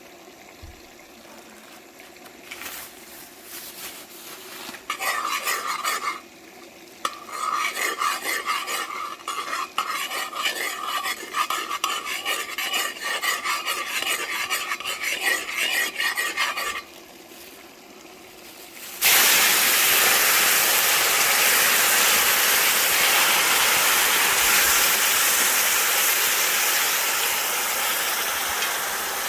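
A spoon stirring and scraping food in a pot with quick repeated strokes. About two-thirds of the way through, a loud, steady sizzle starts suddenly and holds, easing only slightly.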